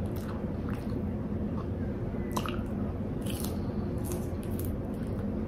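Close-mic eating sounds of a lettuce wrap being bitten and chewed: wet squishy chewing with a few short crunches and mouth smacks, over a steady low hum.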